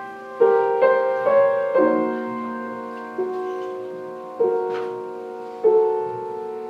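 Solo piano playing a slow passage of seven chords, each struck and left to ring and fade before the next.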